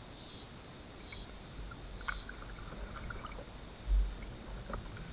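Cicadas droning steadily, with small drips and splashes of water from a kayak paddle, and low rumbles, loudest about four seconds in.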